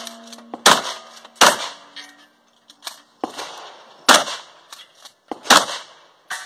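A string of about five or six gunshots fired at an uneven pace, each a sharp crack with a short echoing tail. A steel target rings with a steady low tone for a second or so after the early shots.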